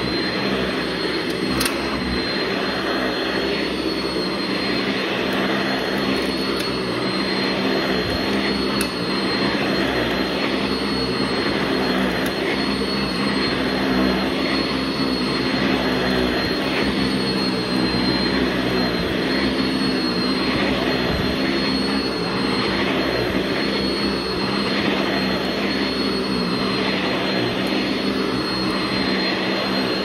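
Sanitaire SC679 commercial upright vacuum running on carpet: the 5-amp motor's steady high whine over the brush roll sweeping the pile. The sound swells and eases about every two seconds with each push-and-pull stroke.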